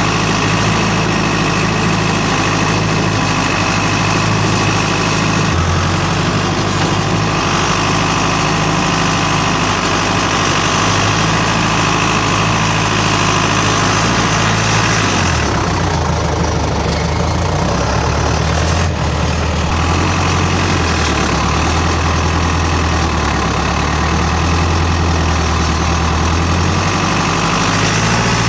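A skidder's diesel engine runs steadily under load while pushing snow. Its note shifts a few times and drops lower about halfway through as the engine speed changes.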